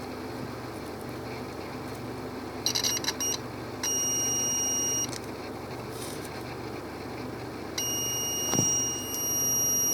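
Multimeter continuity buzzer: a few short chirps, then a steady beep of about a second, and a longer beep of about two seconds near the end. It sounds as the probes bridge the zener diodes, whose beep marks them as shorted. A steady low hum lies underneath, with a light knock shortly before the last beep ends.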